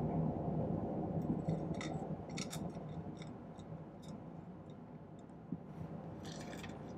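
Small silver pieces (bezels and short lengths of square wire) being set down and nudged into place on a soldering board: scattered light clicks and taps, over a steady low hum.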